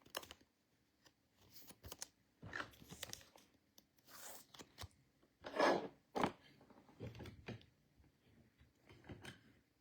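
Football trading cards and foil pack wrappers being handled: a run of short crinkles, scrapes and clicks, the loudest about five and a half seconds in.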